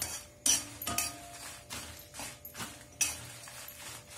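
A flat metal spatula stirring and scraping dried red chillies around a kadai, with irregular scrapes and clinks of metal on the pan. The chillies are dry-roasting and rattle crisply as they are turned.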